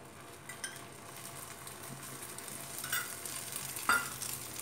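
Egg omelette frying in oil in a non-stick pan, the sizzle growing louder as the oil around its edges heats, with a few light clinks of a spoon, the sharpest a little before the end.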